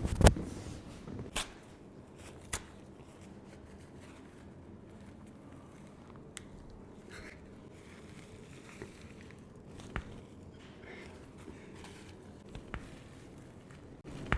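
Sharp cracks and clicks of a chiropractic adjustment: one loud crack right at the start, two more within the next couple of seconds, and a few soft clicks later.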